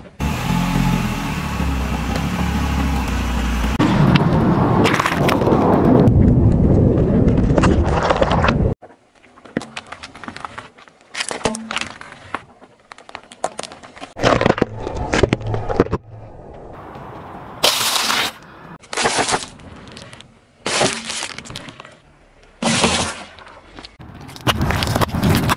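A car tyre rolling over objects on asphalt and crushing them. The car runs loudly with a low rumble for the first eight seconds or so, then comes a string of short, sharp cracking and crunching bursts as items break under the wheel.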